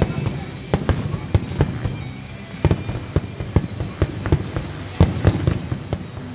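Aerial firework shells bursting in an uneven string of booms and cracks, about two or three a second, over a constant low rumble.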